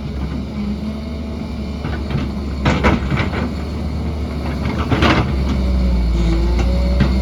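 Heavy earthmoving machine's diesel engine running with a steady low rumble that grows louder about five seconds in, with a few short, harsh scraping sounds around three and five seconds in.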